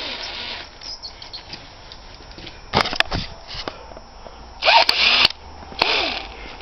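Footsteps crunching and squeaking on packed snow, two heavy steps about a second apart near the end, after a short rustle at the start and a couple of sharp knocks a few seconds in.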